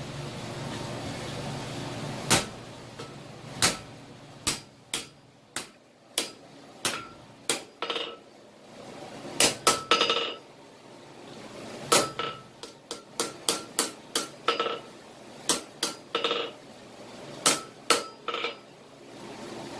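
Hand hammer striking hot steel on an anvil while forging a vise spring. The blows come in an irregular series, some in quick pairs, each with a short metallic ring.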